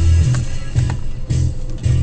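Music with a deep, changing bass line and a drum beat.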